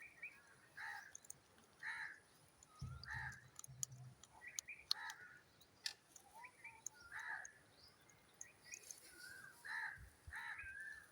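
Parrot giving short harsh calls over and over, about one a second, with a few low thumps between them.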